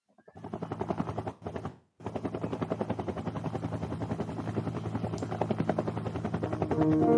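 A rapid, even pulsing, about eight pulses a second, over a low hum. It drops out for a moment about a second and a half in, then resumes. Near the end, keyboard music with held notes comes in over it.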